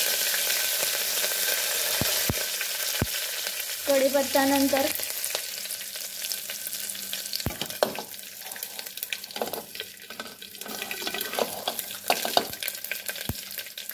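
Curry leaves sizzling in hot oil in an aluminium pressure cooker, with cumin and mustard seeds crackling in a tempering; the sizzle is loudest at first and dies down after about five seconds, leaving scattered sharp pops and clicks.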